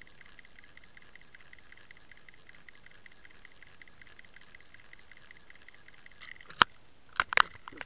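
Underwater recording from a camera towed behind a fishing lure: a faint, fast, steady ticking, then a single sharp click about six and a half seconds in and a quick cluster of louder clicks near the end.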